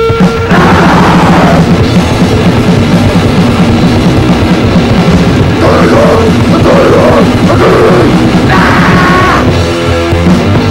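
Loud recorded grindcore/crust punk: fast, relentless drumming under distorted guitar, with bursts of harsh vocals about half a second in, from about six seconds, and near nine seconds.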